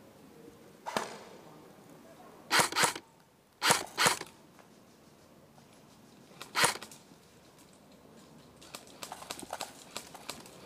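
Airsoft rifle shots: about six sharp single pops spaced irregularly over the first seven seconds, two of them in quick succession, then faint scattered clicks near the end.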